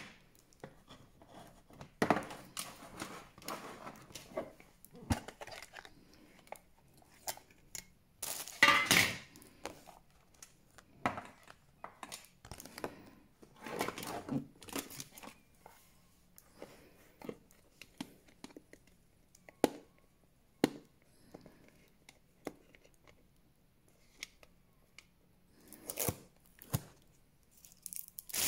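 Packaging being handled: irregular rustling and crinkling of plastic wrap, with sharp clicks and light knocks from metal Santa-face tins, and a loudest crinkling burst about nine seconds in.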